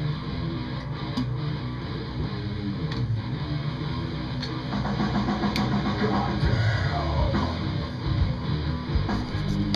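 Rock music with distorted electric guitar and drums.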